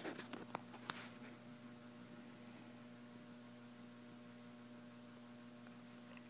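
Faint steady low hum, with a few soft clicks and rustles in the first second.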